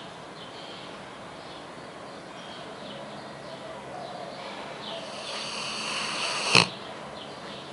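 A sleeping dog snoring. A long noisy breath builds from about five seconds in and ends in one sudden, sharp click, the loudest sound here.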